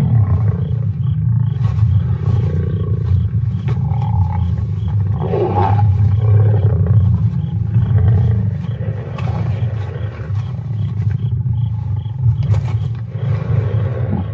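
Lions growling while attacking prey: a deep, continuous rumbling growl that swells louder in the middle.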